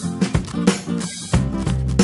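Background music: an upbeat tune with guitar and drums, with low bass notes coming in about halfway through.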